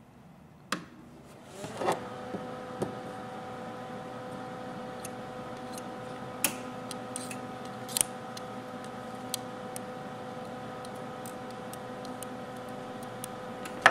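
MIG welder, used as a DC power supply, running with a steady hum while its leads are held on the terminals of a nickel-cadmium drill battery pack. The hum starts about two seconds in, after a click, and is broken by scattered sharp crackles of sparking at the terminal. The high current is meant to burn out the dendrites that the owner believes are shorting the cells.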